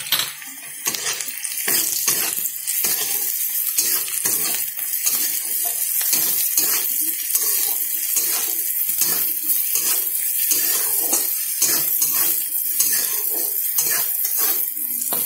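A spatula repeatedly scraping and knocking against a pan as chopped onion, garlic, ginger and green chilli are stir-fried in oil with salt and turmeric, over a steady sizzle.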